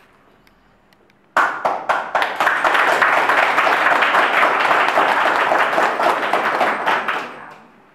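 A small crowd breaks into applause about a second and a half in, with many hands clapping densely for several seconds before it fades away near the end.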